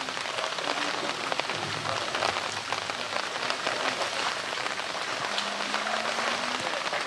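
Water splashing and sloshing in a pool as a polar bear wrestles a floating blue plastic drum, a steady dense splashing with scattered small knocks and slaps.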